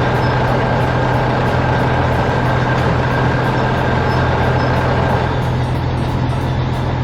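Heavy diesel engine of logging machinery running steadily under load, with a constant low engine drone and a steady whine above it; it eases off slightly about five and a half seconds in.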